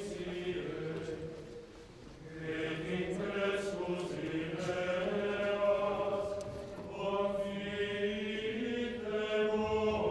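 Voices chanting a slow liturgical melody of long held notes, with a short lull about two seconds in.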